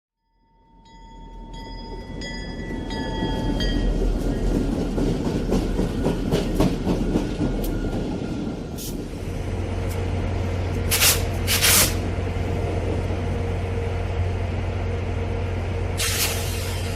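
A train running on rails, fading in with a brief ringing squeal, then the clickety-clack of wheels over rail joints under a steady rumble. There are three short loud hisses, two close together past the middle and one near the end.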